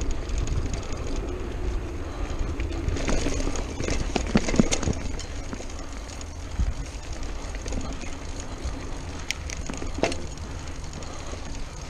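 Mountain bike ridden fast along a dirt singletrack: tyres rolling and the bike rattling over rough ground, with a steady wind rumble on the chest-mounted action camera. A cluster of knocks and rattles comes about four seconds in, and a couple of sharp clicks near the end.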